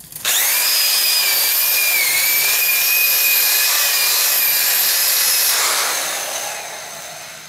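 Electric drill spinning an 80-grit flex hone inside a cast-iron exhaust manifold runner: a steady high whine over abrasive scrubbing as the hone polishes the port. Near the end the drill winds down slowly.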